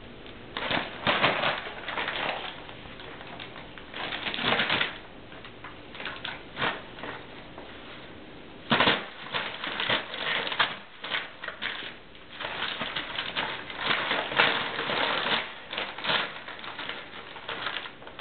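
Crumpled brown packing paper crackling and rustling in irregular bursts as cats paw, pounce and burrow in it.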